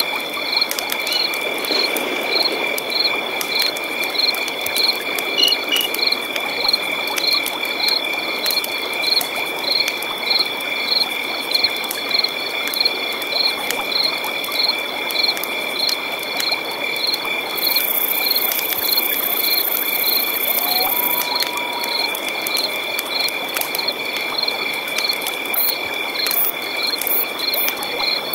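Night-time chorus of insects and frogs: steady high-pitched insect trills with a chirping call repeating a little more than once a second, over a soft background hiss.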